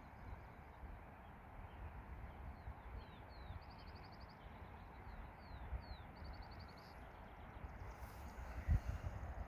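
Low rumble of wind on the microphone, with a small songbird singing in the distance: short high down-slurred notes and two rapid trills in the middle. Near the end, gusts buffet the microphone with heavy low thumps.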